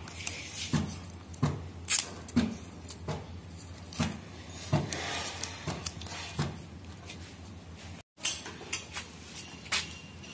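Irregular sharp clicks and knocks of plastic fittings and steel tube being handled on a stainless steel railing, several a second at times, with a brief break about eight seconds in.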